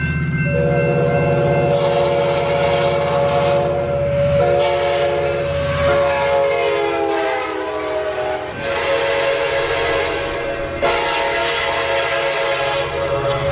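Coaster commuter train locomotive's chord air horn sounding several long blasts run almost together, over the low rumble of the train. The chord sags slightly in pitch partway through.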